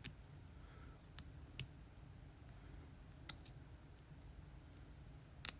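A few faint, sharp metallic clicks from a hook pick and tension tool working in a Lockwood 334B45 lock, irregularly spaced, with the loudest near the end.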